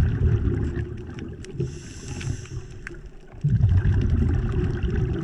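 Scuba diver's regulator breathing underwater: a rumbling rush of exhaled bubbles, a short soft hiss of an inhale about two seconds in, then another long rumble of exhaled bubbles from about three and a half seconds in. Faint scattered clicks run underneath.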